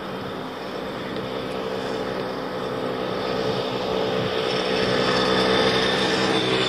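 Moped's small engine coming up from behind, growing steadily louder as it draws alongside to pass.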